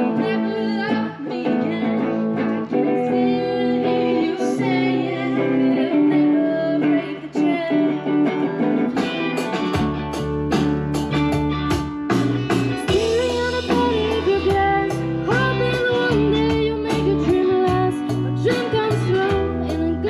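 Live amplified band music: a young female singer over electric guitars. About ten seconds in it changes to another song with a stronger bass and a steady drum beat.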